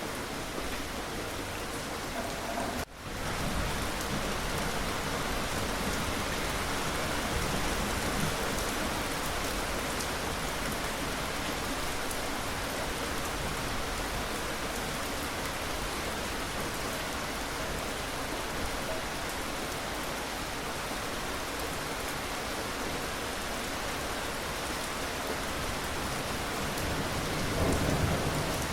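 Steady rain falling, an even hiss of drops, with a split-second dropout about three seconds in. A low rumble swells up near the end.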